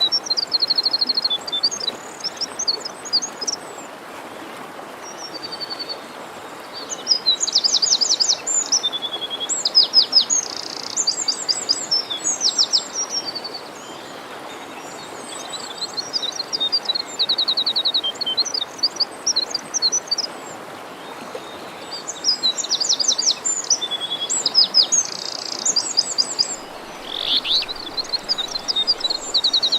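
Songbirds singing in bouts of rapid chirps and high trills, with short pauses between phrases, over the steady rush of a forest stream.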